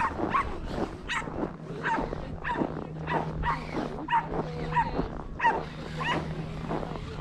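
A dog barking over and over in short, sharp barks, roughly one every two-thirds of a second.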